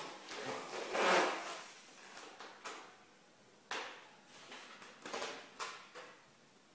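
Packaging of a boxed model car being handled: a rustling scrape about a second in, the loudest sound, then several short knocks and clicks as box parts and papers are moved about.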